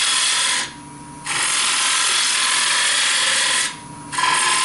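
Lathe tool cutting the underside of a spinning wooden plate blank, a steady hissing cut with shavings coming off. It stops twice for about half a second as the tool comes off the wood.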